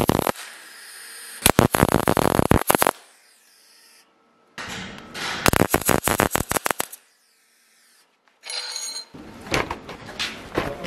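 MIG welder laying short welds on steel square tubing: crackling, spattering bursts of about one and a half to two seconds, with quiet gaps between. Near the end, lighter knocks of the steel tube being handled.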